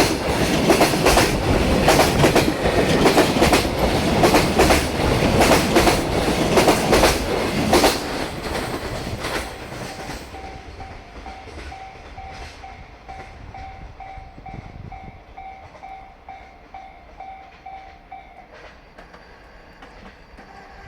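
Container wagons of a freight train rolling past with a loud rhythmic clatter of wheels over rail joints, until the last wagon goes by about eight seconds in and the rumble fades away. Then a level-crossing warning bell rings as a steady pulsing tone until it stops a couple of seconds before the end.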